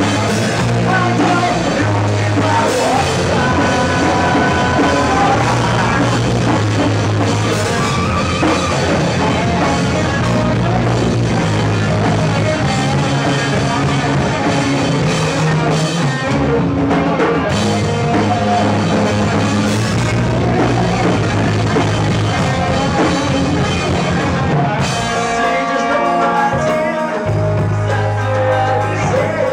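A rock band playing live: drum kit and bass under a singing voice. The low bass drops out briefly near the end, then comes back.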